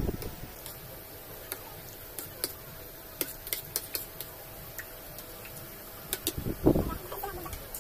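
Metal spoons and forks clinking and tapping on ceramic plates while eating, in scattered irregular clicks. A brief louder sound comes near the end.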